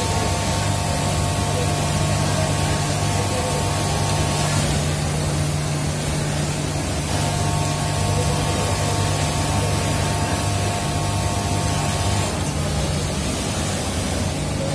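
Steady din of industrial sewing machinery on a garment factory floor: an even hiss with a low hum beneath. A higher machine whine runs for the first four and a half seconds, stops, returns about seven seconds in, and cuts out again about twelve seconds in.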